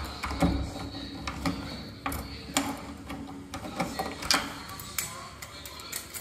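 A key working in a door lock under a steel lever handle, making a string of separate metallic clicks and rattles as it is turned and pulled out.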